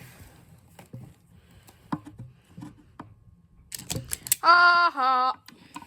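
Light clicks and small knocks of objects being handled, with a quick cluster of sharp clicks a little before the end. Then a short voiced sound in two parts, held on one pitch: a person humming or vocalising.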